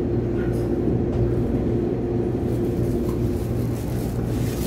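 Steady electric hum of a standing commuter EMU, heard from inside the car: a constant mid-pitched tone over a low drone, with no speeding up or slowing down.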